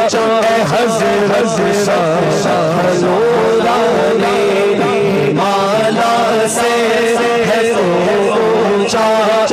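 A man singing an Urdu manqabat (devotional song) solo into a microphone, with long, wavering held notes over a steady low drone.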